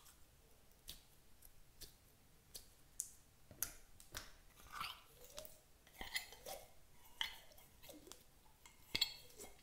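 Clear jelly slime being pulled out of a plastic jar and handled by hand, making quiet, irregular sticky clicks and small wet pops.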